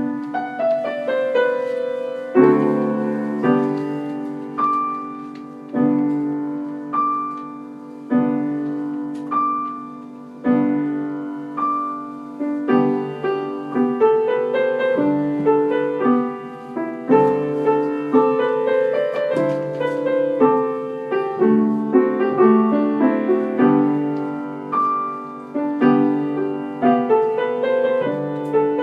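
Solo piano music: chords and a melody, each note struck and left to ring and fade.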